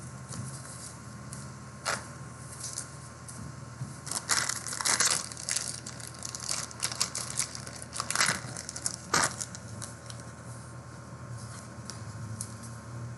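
Trading-card pack wrapper being torn and crinkled, with a sharp snap about two seconds in and the loudest crinkling about four to five seconds in and again around eight to nine seconds.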